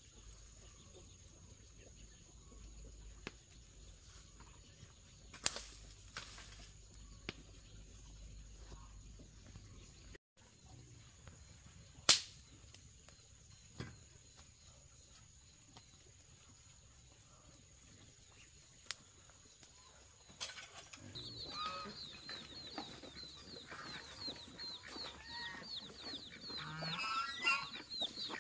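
Chickens clucking with fast, high peeping, starting about two-thirds of the way in. Before that it is quiet, with a few scattered sharp knocks, the loudest about twelve seconds in.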